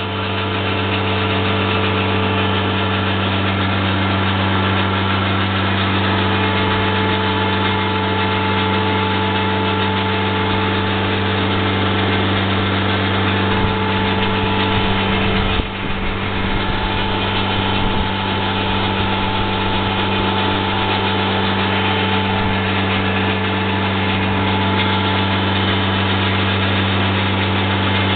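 A steady low mechanical hum with strong even tones, like an idling engine or motor, with a brief dip a little past halfway.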